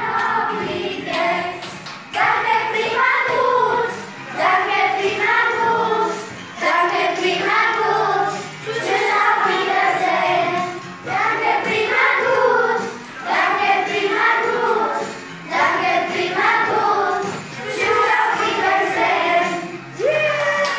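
A group of children singing a song together, phrase after phrase of about two seconds each.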